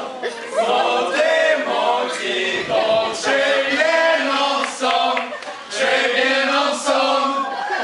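Several men singing together a cappella, voices held in long sung phrases without instruments.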